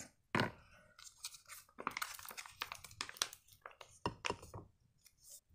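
Soft plastic squeeze pouch of Heinz barbecue sauce crinkling and clicking as it is handled and squeezed out, a faint scatter of small irregular crackles and clicks.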